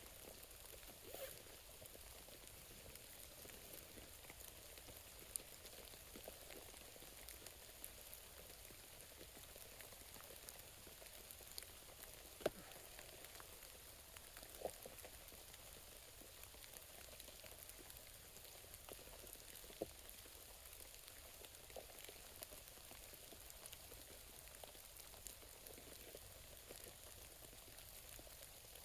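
Faint steady rain, with a few louder single drops standing out now and then.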